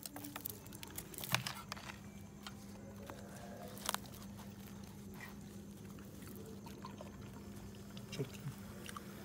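Faint handling sounds as naan bread is torn by hand: a few small taps and rustles, the clearest about a second and a half in and again near four seconds, over a steady low hum.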